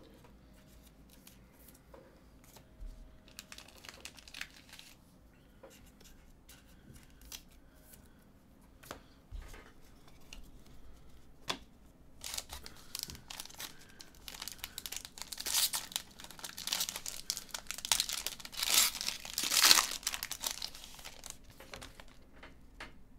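Foil trading-card pack wrapper being torn open and crinkled. Scattered light taps come first; the crinkling starts about halfway through and is loudest and densest near the end.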